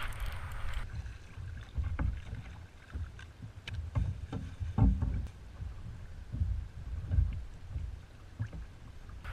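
Wind buffeting the microphone of a camera mounted on a kayak, a steady low rumble. Scattered short knocks and taps come from the kayak as the angler handles a freshly caught puppy drum (redfish).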